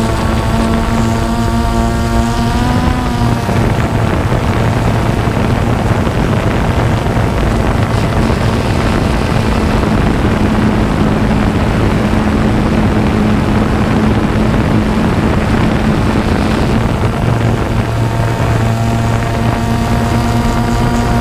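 Multirotor drone's motors and propellers humming steadily, heard through the camera riding on the drone, with heavy wind rush on the microphone. The motor pitch wavers about three seconds in. Through the middle the whine is mostly buried in the wind, and it comes through clearly again near the end.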